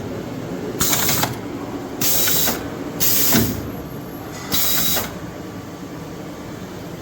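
Magazine bar feed on a CNC Swiss lathe cycling: four short hissing bursts, each about half a second long, over a steady machine hum. The bursts stop after about five seconds.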